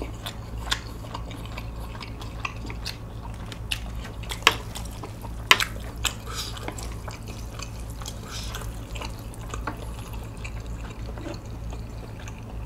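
Chopsticks and a wooden spoon mixing sauced spicy bibim noodles with sea snails in a large bowl: wet sticky noodle sounds with scattered light clicks of the utensils against the bowl, over a low steady hum.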